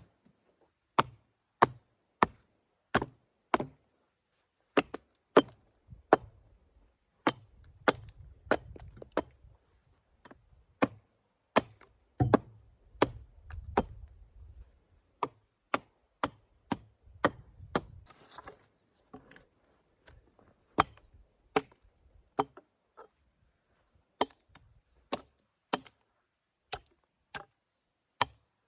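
Axe chopping branches off thin logs: a long series of sharp, separate strokes, about one or two a second, with a few short pauses.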